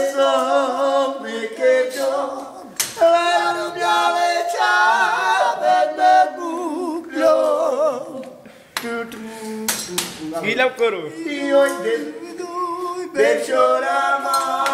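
Men singing without accompaniment, in long wavering held notes that sometimes overlap.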